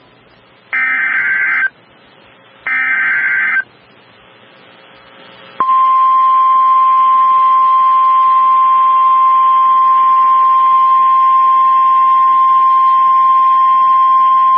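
Emergency Alert System SAME header: two buzzy digital data bursts of about a second each, a second apart. After a two-second pause comes the NOAA Weather Radio 1050 Hz warning alarm, a single steady tone held for about nine seconds, which signals a warning-level alert and cuts off abruptly.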